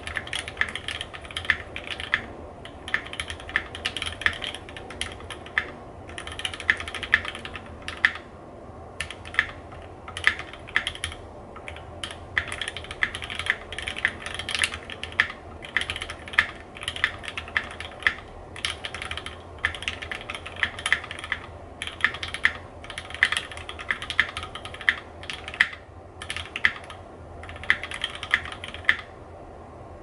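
Typing on a Keychron Q1 aluminium mechanical keyboard with lubed and filmed Gateron Cap V2 Yellow linear switches, GMK keycaps, and plate and case foam. The keys are struck in quick runs with short pauses, and the typing stops about a second before the end.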